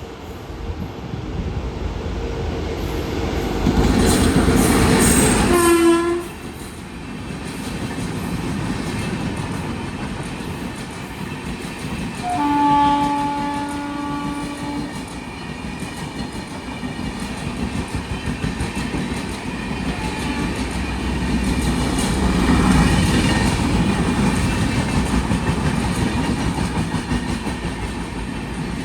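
A train running past, its horn sounding twice: a short blast about six seconds in, then a longer steady blast of about two and a half seconds a little before the middle. The wheels rumble throughout, with a regular clickety-clack over the rail joints near the end.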